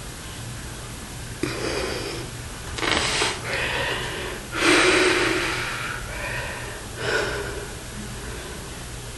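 A man breathing hard as he flexes: a run of about six forceful breaths and exhalations, the loudest about halfway through, over a steady low electrical hum.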